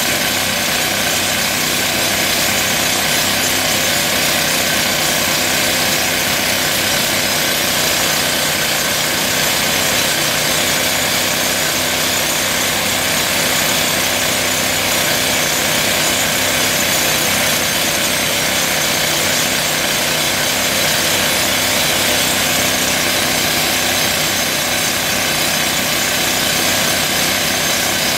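Toku TS 55 pneumatic rock drill hammering steadily as its drill steel bores into rock, a loud, dense, unbroken rattle.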